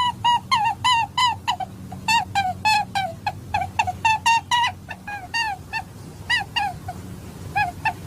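Domestic fowl calling: a fast, continuous run of short pitched calls, about three or four a second, each bending in pitch, over a steady low hum.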